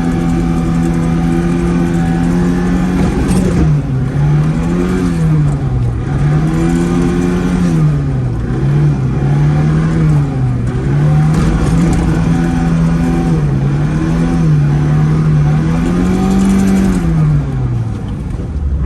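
Zhiguli car engine revving hard, held steady for about three seconds, then rising and falling again and again as the throttle is worked on and off, as in drifting, before dropping away near the end.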